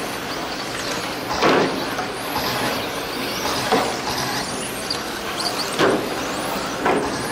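Electric radio-control touring cars racing on an indoor carpet track, their motors whining up and down in pitch as they accelerate and brake through the corners, with about four brief louder swells as cars pass close or hit the boards.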